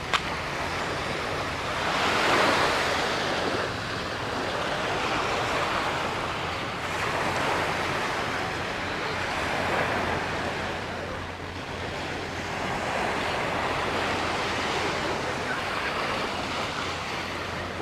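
Small waves breaking and washing up the sand, the wash swelling and fading every few seconds, loudest about two seconds in.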